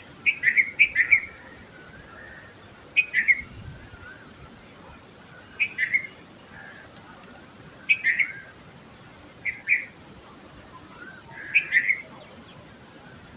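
Red-vented bulbul singing: short bubbly phrases of two to four quick notes, repeated about every two seconds, six phrases in all. A faint steady high-pitched tone runs underneath.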